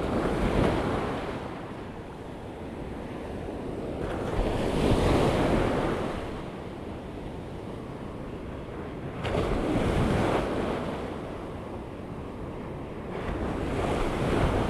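Ocean surf breaking and washing in around the wader, swelling up and dying away four times, about every five seconds, with wind on the microphone.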